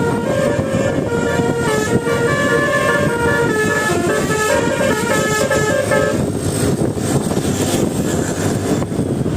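Bus basuri 'telolet' musical air horn playing a quick melody of short, changing notes, which stops about six seconds in. A steady loud noise of vehicles and traffic runs underneath throughout.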